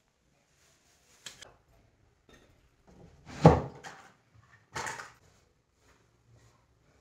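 Scattered knocks and clatter of objects being handled and moved about inside a wooden home shrine, with a small click just over a second in, the loudest knock about three and a half seconds in and another just before five seconds.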